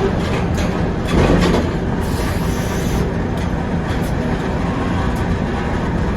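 Sawmill machinery running with a steady, dense mechanical noise as the head saw and carriage work through a red oak log, with a louder surge a little over a second in.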